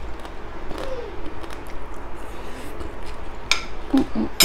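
Close-miked chewing and mouth sounds of a person eating crispy baked chicken, with small ticks throughout. A sharp clink of a metal spoon on a ceramic plate comes about three and a half seconds in, and a brief hum near the end.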